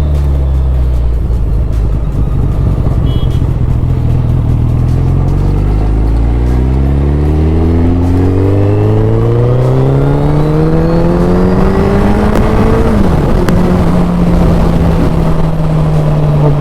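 Suzuki Hayabusa's 1340 cc inline-four engine under hard acceleration: its note climbs steadily for about ten seconds, drops abruptly about thirteen seconds in, then holds a steady pitch, with wind noise over the microphone.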